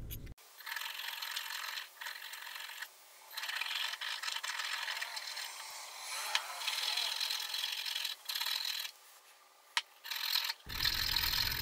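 A small hand file rasping on the steel crossguard's slot in uneven runs of strokes, filing down the high points so the guard will seat on the blade. One sharp click near the end.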